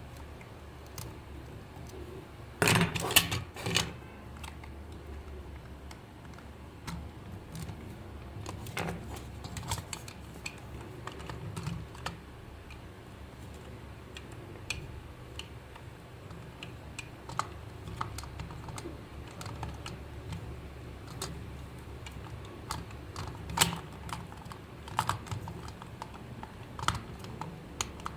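Scattered small clicks and taps of small hard parts being handled, with a quick burst of louder clicks about three seconds in, over a low steady hum.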